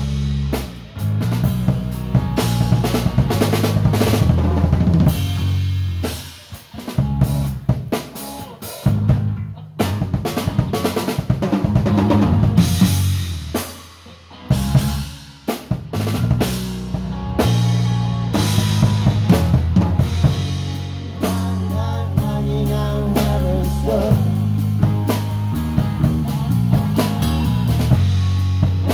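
Live rock band playing an instrumental passage dominated by the drum kit, with bass guitar notes underneath and a few brief breaks.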